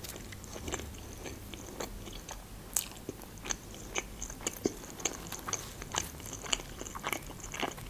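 Close-miked chewing of a toasted, crusty pastry, with irregular small crunches and wet mouth clicks.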